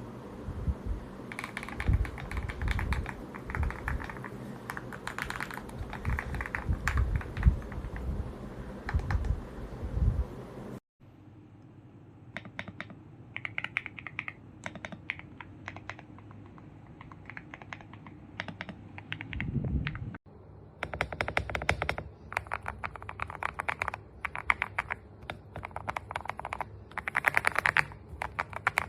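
Fast typing on a GMK67 mechanical keyboard: a dense run of keystroke clicks that breaks off abruptly twice, about 11 and 20 seconds in. The first stretch has a deeper thud under the clicks.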